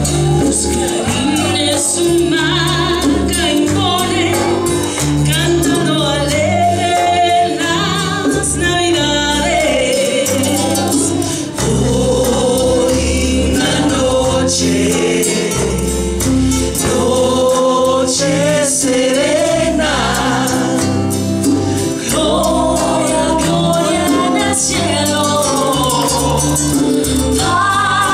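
A mixed vocal group singing a Spanish-language Christmas song in parts, backed by acoustic guitar, hand drums and low bass notes.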